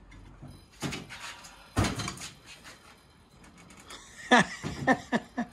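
Metal radiator shutter assembly being handled and fitted onto a radiator core, giving two sharp clanks about a second apart and then lighter rattling of the louvers.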